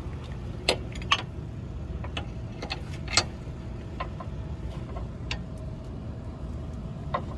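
Scattered sharp metallic clicks and clinks, about eight of them at uneven intervals, from hand tools and suspension parts being handled during front-suspension work, over a steady low rumble.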